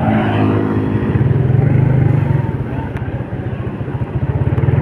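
Road traffic in a jam: a vehicle engine running steadily close by, with a low, evenly pulsing sound.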